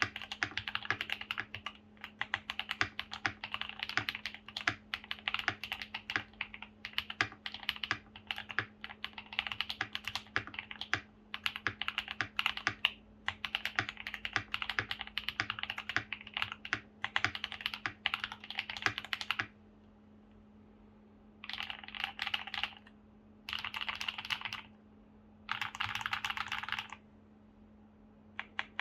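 Keychron V1 mechanical keyboard with lubed KTT Darling switches, tape mod, PE foam and ABS double-shot keycaps being typed on fast and without a break, then after a short pause about two-thirds in, three short bursts of rapid keystrokes. A faint steady hum sits underneath.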